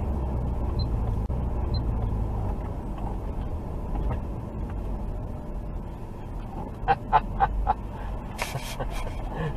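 Low rumble of a car's engine and tyres heard from inside the cabin as it slows down. About seven seconds in come four quick, short high beeps in a row, the loudest sounds, then a couple of brief sharp crackles.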